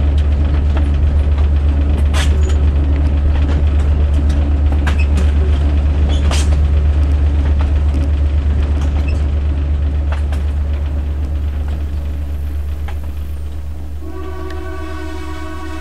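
Passenger train running, a steady low rumble with scattered sharp clicks. About fourteen seconds in, the air horn of the GMD-1 diesel locomotive starts sounding, a steady chord of several notes that holds on.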